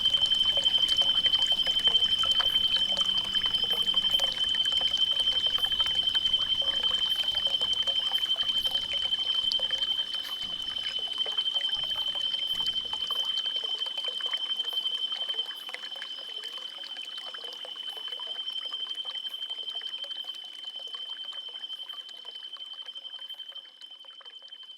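Forest ambience: a steady, high-pitched insect drone over trickling water, with faint ticks. It fades out gradually over the second half.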